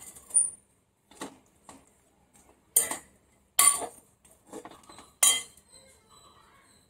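Steel spoon clinking and scraping against a glass bowl while mixing rice: four sharp clinks at irregular intervals, with softer taps in between.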